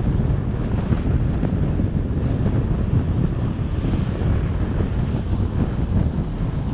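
Wind rushing over the microphone of a camera mounted on a moving vehicle, a steady low rush mixed with the vehicle's road noise.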